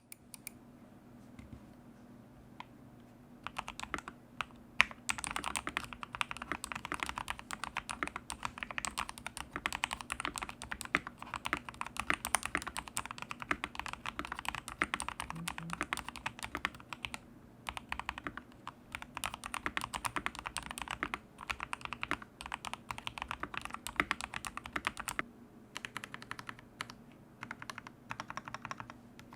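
Typing on a custom mechanical keyboard with Akko CS Jelly Pink linear switches lubed with Krytox 205g, PBT Cherry-profile keycaps, an aluminium plate, PE foam and a tape mod. A few separate key presses open, then fast continuous typing runs with two brief pauses.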